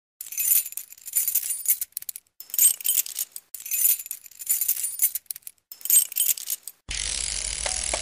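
Bright metallic jingling in a string of bursts about a second long, each with a short gap after it. Near the end a fuller, steadier sound with a low hum comes in.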